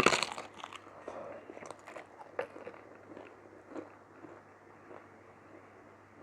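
Close-miked mouth sounds of eating mutton curry with rice: a loud burst of sound right at the start, then irregular wet chewing clicks and smacks.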